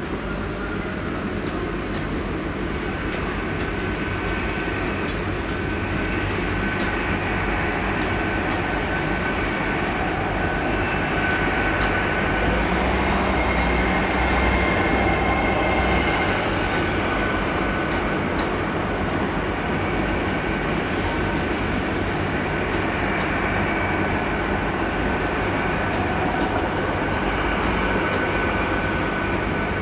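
A Great Western Railway Hitachi Class 800-series intercity train moving slowly past. Its running noise builds to loudest about halfway through and then eases off, with a steady high-pitched whine over a low rumble.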